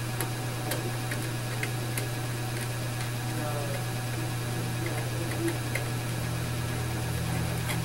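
Screwdriver tightening the screw terminals on a FireWatch 411 dialer's terminal block: faint scattered small clicks and scrapes over a steady low hum.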